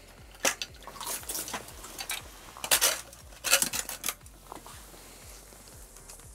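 Irregular clicks and clatter of fishing gear being handled, including an aluminium pole and its bracket being moved and adjusted. About five short rattles, the loudest two near the middle.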